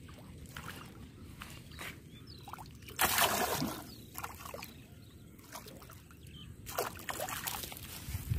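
Hooked fish splashing and thrashing as it is hauled out of the water onto the bank, in two loud bursts: about three seconds in and again near the end.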